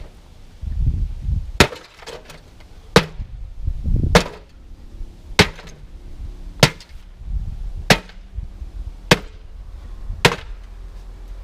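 Sledgehammer blows smashing a fire-burned microwave oven: eight sharp, evenly spaced strikes, about one every second and a quarter.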